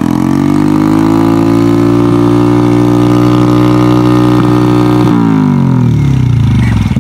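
Yamaha Jupiter Z motorcycle's single-cylinder four-stroke engine revved through an aftermarket exhaust: the revs climb in the first second, are held steady and high for about four seconds, then fall back toward idle near the end.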